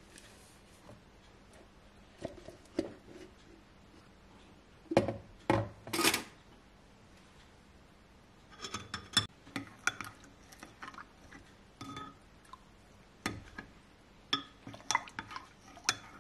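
Metal spoon stirring in a glass measuring jug, clinking and scraping against the glass in scattered bursts, with three louder knocks around five to six seconds in.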